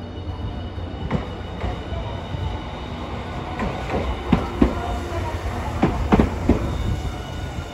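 Hiroshima Electric Railway 1000-series Green Mover LEX low-floor tram pulling out and passing close by: a steady low running rumble broken by sharp clacks of the wheels over the track, coming in quick groups as it goes past.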